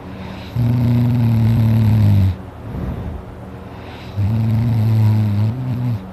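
A man snoring loudly in his sleep: two long, low, droning snores of nearly two seconds each, a few seconds apart, with quieter breathing between them.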